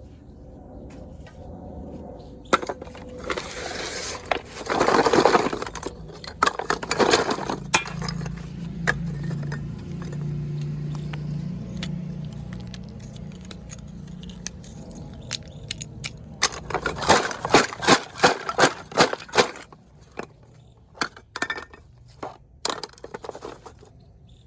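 Brittle baked-clay kulhad cups being snapped and crushed by hand, a series of sharp cracks and crunchy crumbling. Near the end comes a quick run of sharp cracks.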